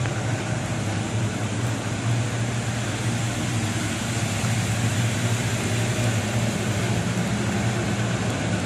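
Steady low hum with an even rush of air from an auto body paint booth's ventilation fans.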